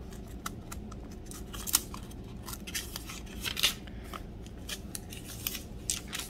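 Thin pages of a large study Bible being flipped one after another, a steady run of crisp rustles and soft paper snaps, with two sharper flicks, a little under two seconds in and again about halfway through.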